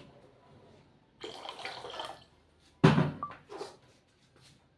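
Milk being poured into the tea mixture for about a second, with a liquid splashing noise. A sharp knock follows about a second later, with a lighter knock soon after, as the container is handled.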